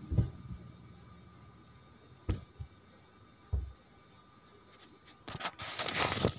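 A sheet of craft paper being folded and creased by hand: a few soft taps of fingers and paper on the table, then a burst of crinkling paper rustle near the end.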